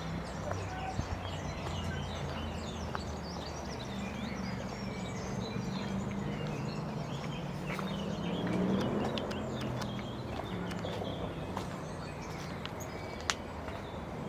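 Birds chirping and twittering over a low, steady hum that swells briefly about eight seconds in, with a sharp click near the end.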